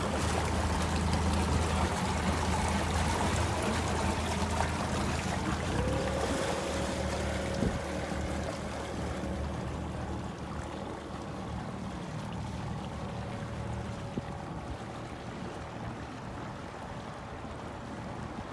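Small harbour passenger ferry's engine running with a low hum and water churning as the boat pulls away, growing gradually quieter as it moves off. A faint steady whine joins about six seconds in.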